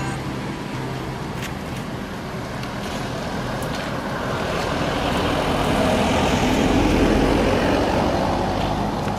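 A bus driving past on the road, its engine and tyre noise swelling to a peak about seven seconds in and then fading.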